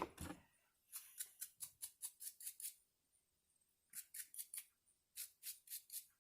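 Faint scraping on the brass nut from a John Deere 60 carburetor as it is cleaned by hand: quick short strokes, about nine in a row, a pause, then two shorter runs of about four.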